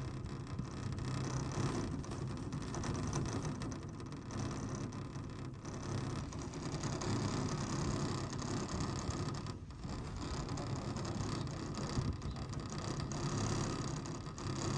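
Chairlift running, heard from a moving chair: a steady mechanical rumble with a light rattle from the moving haul rope and chair.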